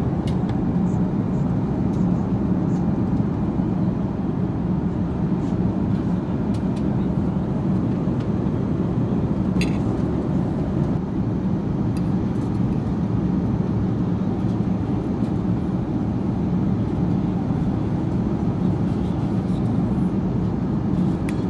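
Steady cabin noise of an Airbus A330-300 in flight: a constant low rush of engines and airflow heard from inside the passenger cabin.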